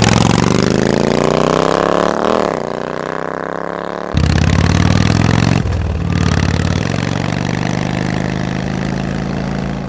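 Motor engine sound effect in a song intro. The engine revs up in pitch for about two seconds, eases off, and about four seconds in switches to a steady low-pitched running note that holds until the end.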